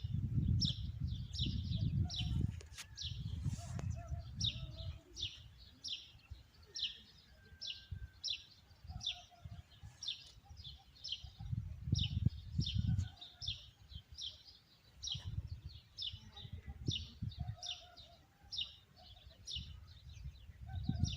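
Small songbird chirping over and over, short falling high chirps about twice a second, with a low rumble on the microphone now and then.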